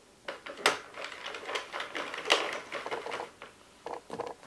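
Sentro circular knitting machine cranked by hand for a row in the reverse direction, its plastic needles clacking through the carriage in an uneven rapid clatter. The clatter is busiest for the first three seconds, with a few more clacks near the end.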